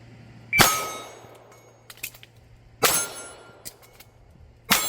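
Three pistol shots about two seconds apart, each followed by the ringing of a steel target being hit. Faint short clicks between the shots fit magazine changes during a single-shot, reload, single-shot reload drill.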